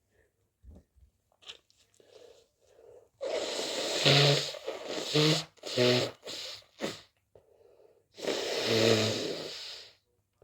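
A person with a stuffy, congested cold sneezing: two long, noisy sneezes about four seconds apart, with a few short voiced catches of breath between them.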